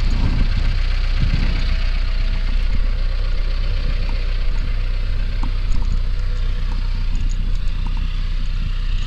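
A vehicle engine running steadily, a constant low rumble with a few faint clicks and knocks over it.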